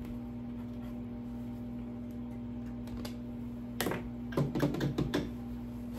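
A quick run of light clicks and taps, starting about four seconds in, from hands handling small items and a pen on a worktable, over a steady background hum.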